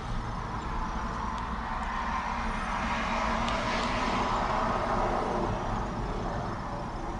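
Case 580SM+ backhoe loader's diesel engine running steadily, with a broad rushing noise that swells through the middle and eases off near the end.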